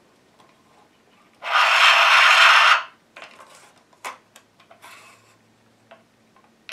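A loud rubbing scrape lasting over a second as the plastic phonograph kit is handled, followed by a few light clicks and knocks of its plastic parts.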